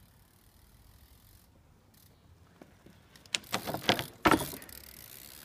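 BMX bike taking off from stacked wooden ramps at a curb: a quick clatter of clicks and rattles as the wheels run over the ramps, then one loud thud as the bike lands on the road a little over four seconds in.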